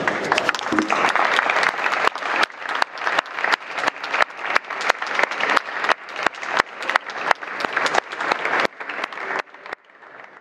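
Audience applauding, with loud single claps close by standing out in a steady beat, dying down near the end.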